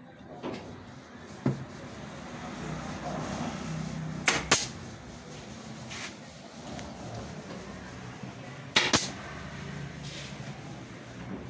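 Pneumatic nail gun firing into the wooden strips of a frame, twice: each shot a sharp double crack, the first about four seconds in and the second about nine seconds in. Lighter clicks of the tool being handled and set against the wood come between the shots, over a low steady hum.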